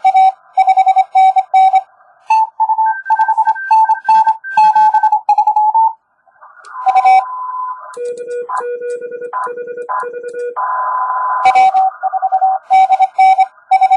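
Morse code on a ham transceiver: the operator's own paddle-keyed sidetone beeping near the start and again near the end. In between come the other station's keyed tones at different pitches over receiver hiss.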